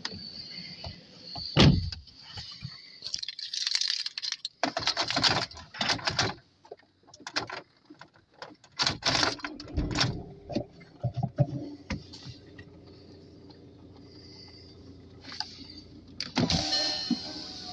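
Handling clicks and knocks with a loud thump early on. About nine seconds in, the VW Passat B6's 2.0 TDI engine is started with the push button and then runs with a steady low hum. Near the end, the electric window motor in the driver's door runs with a loud whir.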